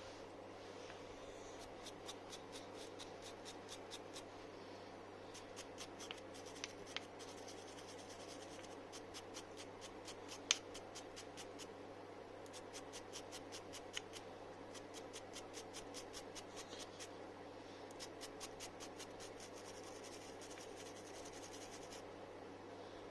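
Rapid back-and-forth scrubbing or scraping strokes by hand, about five a second, in several runs with short pauses between them. A few sharp clicks come through, the loudest about ten seconds in, over a steady low hum.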